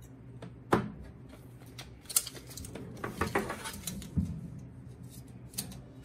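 Handling noise from a steel tape measure and a power cord's plastic plug: scattered sharp clicks and short light rattles. The sharpest click comes about three-quarters of a second in.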